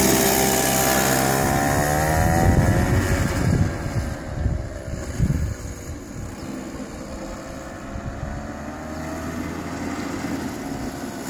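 Small single-cylinder engine of a kid's go-kart running, loud as the kart passes close by, its pitch dipping and then rising again. It grows quieter after about three seconds as the kart drives off across the lot.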